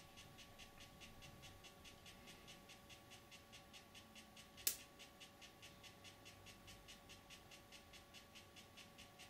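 Handheld 3D pen's small feed motor running faintly as it pushes ABS filament into a seam to weld it: a steady low hum with soft ticks about five times a second. A single sharp click about halfway through.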